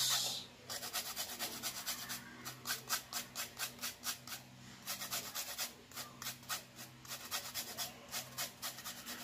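A metal hand grater rasping a chicken broth cube, stopping within the first half second, followed by a steady series of soft clicks, about three a second.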